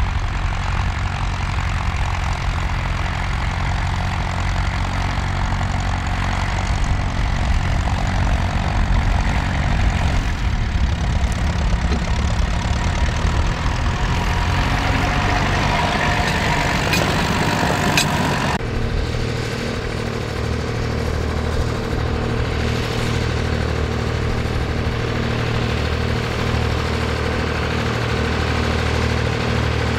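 Grey Ferguson tractor's engine running steadily as it pulls a plough; about two-thirds of the way in the sound switches suddenly to a Massey Ferguson tractor's engine running with an even beat as it ploughs.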